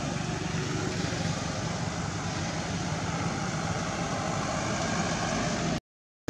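Steady outdoor background noise with a low rumble and hiss, cutting to dead silence for about half a second near the end.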